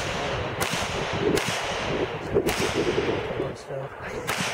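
Glock pistol fired four times, shots spaced about a second apart.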